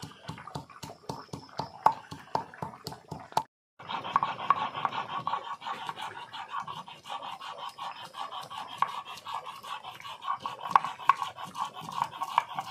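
Stone roller crushing whole garam masala on a stone grinding slab (shil-nora), a fast run of sharp knocks. After a brief break, the stone is rubbed back and forth over the slab, grinding the spices to a paste with a quick, gritty scraping.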